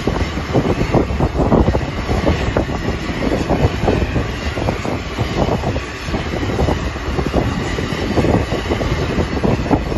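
Loud, steady aircraft engine noise on an airport apron, with an irregular, gusty rumble running through it.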